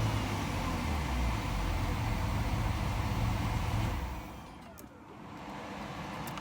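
BMW E36 328i 2.8-litre straight-six running steadily just after starting, with the EWS immobilizer satisfied by the key in its antenna ring; about four seconds in it is shut off and runs down.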